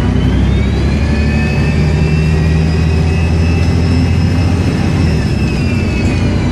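Volvo Olympian double-decker bus under acceleration: diesel engine pulling with a loud, high turbocharger whistle that rises, holds, then falls away about five seconds in.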